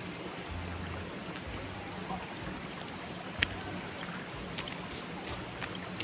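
Mountain stream water running steadily over rocks, with a few sharp clicks; the loudest comes about three and a half seconds in.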